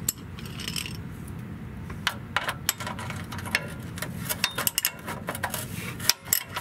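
Socket ratchet clicking in short irregular runs as the oil drain plug is turned back into the oil pan. The clicks start about two seconds in and come thicker near the end, over a steady low hum.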